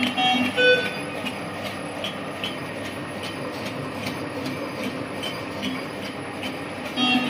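High-speed film label cutting machine running: a steady whir of rollers and the film web, with a faint repeating tick. Brief background music plays in the first second and again near the end.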